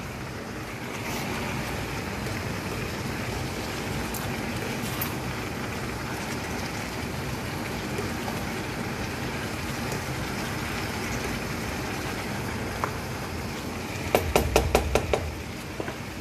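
Chicken and vegetables sizzling steadily in a hot frying pan as they are stir-fried. About two seconds before the end comes a quick run of about eight sharp knocks, utensil against the pan.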